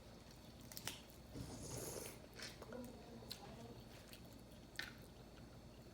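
Quiet eating sounds of boiled seafood: chewing and mouth sounds, with about four sharp clicks spread through.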